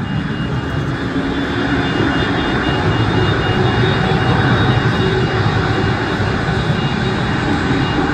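Turbofan engines of a taxiing Embraer E2 airliner (Pratt & Whitney PW1900G geared turbofans) running steadily at taxi power: a continuous low rumble with a high, steady whine above it.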